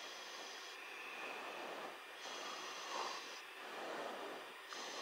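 Faint steady hiss of an aircraft radio/intercom audio feed between transmissions, with soft swells of noise about every two and a half seconds.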